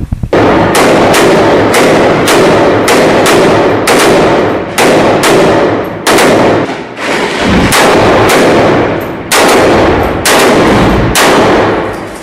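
Close, very loud rifle fire: shots coming steadily, about two to three a second, each trailing off in a ringing echo.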